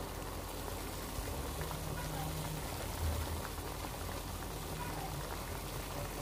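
A pan of spicy zucchini stew boiling on a gas stove: a steady bubbling and hiss of the simmering broth.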